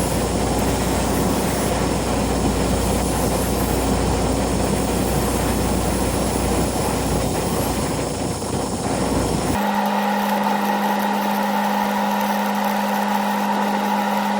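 Steady mechanical running noise, likely the engine-driven welder running during the hinge welding, with a strong low hum under an even hiss. About ten seconds in it cuts off abruptly and gives way to a steady hum holding two tones.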